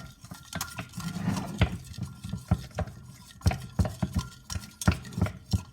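A knife stirring in a bowl, with irregular clinks and knocks of the blade against the bowl and a short scraping stretch about a second in.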